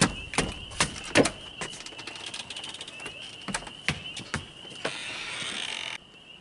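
Footsteps on wooden porch boards: quick knocks about every 0.4 s for the first second or so, then a few scattered steps, over a steady high chirring of insects. A short rush of noise near the end cuts off abruptly.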